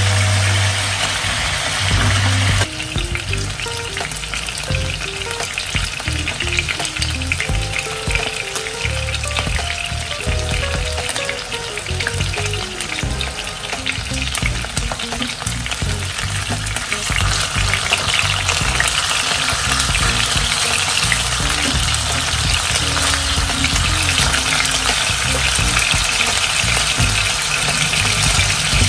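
Chicken breasts frying in oil in a nonstick pan: a steady sizzle that gets a little louder about halfway through, with the pieces being turned with a spatula and fork now and then.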